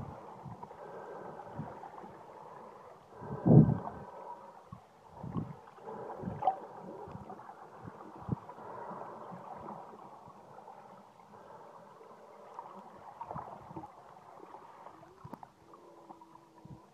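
Muffled, gurgling underwater sound of moving water heard through a phone's sealed waterproof case, with several dull thumps, the loudest about three and a half seconds in.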